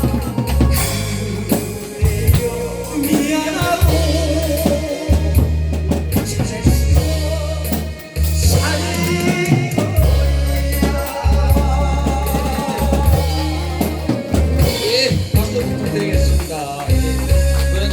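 A woman's voice singing a Korean song with wide vibrato over accompaniment of drum kit and heavy bass.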